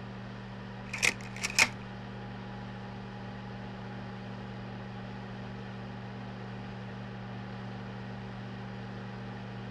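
A quick cluster of about four sharp mechanical clicks about a second in, a frame-advance mechanism moving to the next frame, over a steady low electrical hum and hiss.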